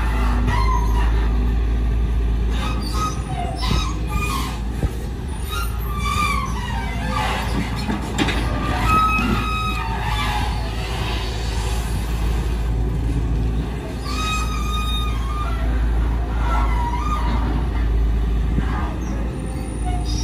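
Volvo EC210DL long-reach excavator's diesel engine running under load as the boom swings and the bucket digs mud, a steady low drone with short higher-pitched whines coming and going over it.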